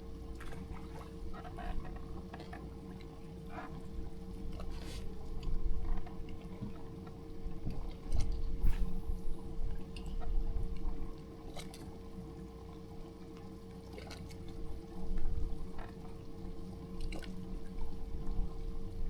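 Water lapping and splashing against a boat hull, under a steady hum, with scattered clicks and knocks.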